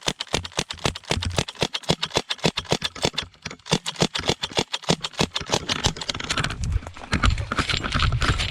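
Airsoft gun firing rapidly, a fast run of sharp cracks about six to seven a second; after about six seconds the shots thin out into rougher, irregular noise.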